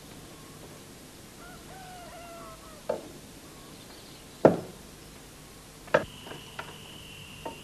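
Knocking on a door: three sharp knocks about a second and a half apart, then a few fainter taps.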